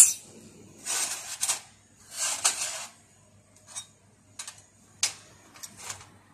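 Handheld fiber laser welder firing in two short hissing bursts about a second apart, then steel sheet pieces clinking and knocking as they are handled and set down.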